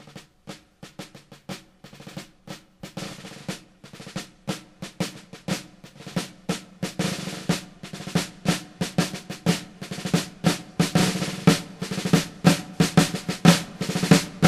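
A lone snare drum playing a military-style marching cadence of quick strokes and rolls, growing steadily louder, as the introduction to a musical-theatre song.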